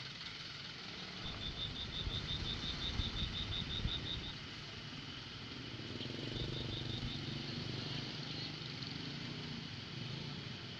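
Outdoor ambience with a steady low rumble, over which a high-pitched chirping repeats at about seven pulses a second, in a run of about three seconds early on and a shorter run later.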